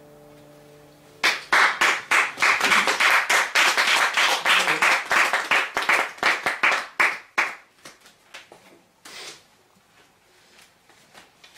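Small audience applauding by hand, starting about a second in as the last acoustic guitar chord rings out, then thinning to a few scattered claps and stopping near the end.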